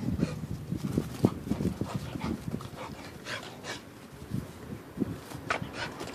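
A dog panting hard from running, with quick uneven breaths mixed with short sharp snaps and thuds.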